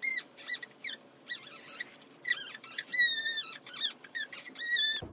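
A run of about a dozen short, high-pitched squeaks, some sliding in pitch and one held for about half a second, as a baby's skin rubs and slides on a vinyl play mat while it army-crawls backwards.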